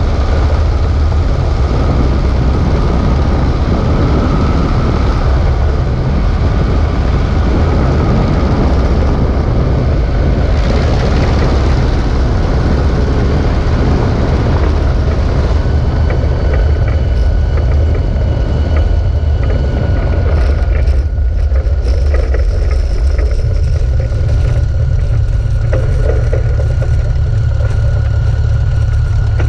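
Sopwith Pup replica biplane landing, heard from a camera on its wing: the engine runs under a heavy rumble of wind on the microphone during the low approach. About halfway through it touches down, and from there the engine sounds a steady whine while the wheels rattle and click over the ground on the rollout.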